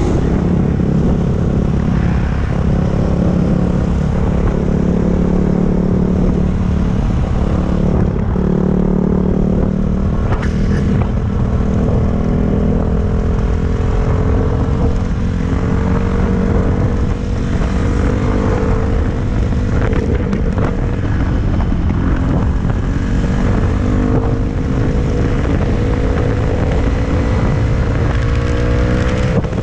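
Dirt bike engine running under way at a fairly steady throttle, its pitch easing up and down as the rider works the throttle, heard from the rider's helmet camera with a low rumble of wind and road noise underneath.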